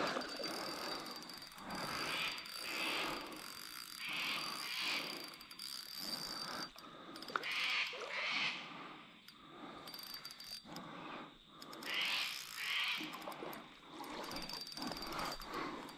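Spinning reel ratcheting in short, repeated bursts while a hooked carp is played close in.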